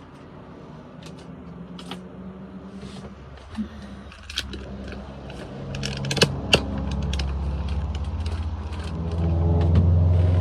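Small hard pieces of hardware clicking and clattering as drawer knobs are handled and sorted. Under them, a vehicle engine's low hum grows louder from about halfway through.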